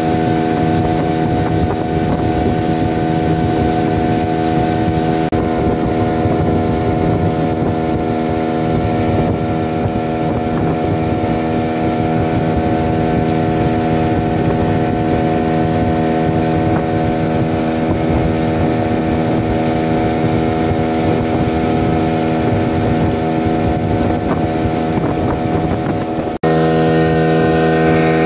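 15 hp outboard motor running steadily at cruising speed, driving a small boat along a river, with water rushing past and wind on the microphone. About two seconds before the end the sound changes suddenly and the motor is heard closer and louder.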